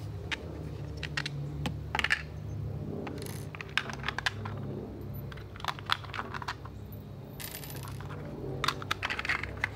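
Hard plastic parts of a Power Wheels ride-on toy clicking and clattering as they are handled and set down on a table: many short sharp clicks, some in quick clusters. A steady low hum runs underneath.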